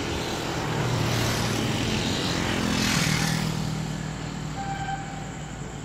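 A passing vehicle: a rushing noise over a low hum that swells to its loudest about three seconds in and then fades away.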